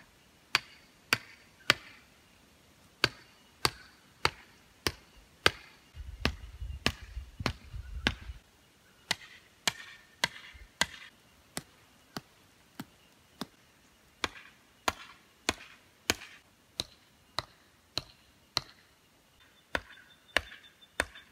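Pegs being hammered into the ground for marking out: steady hammer blows about every 0.6 seconds, in runs with a few short pauses.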